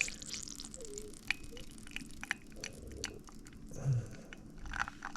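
Faint scattered clicks and ticks from the Cafelat Robot manual lever espresso maker as its lever arms are pressed down to brew.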